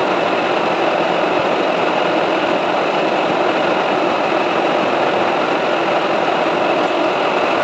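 Metal lathe running steadily, turning a steel shaft.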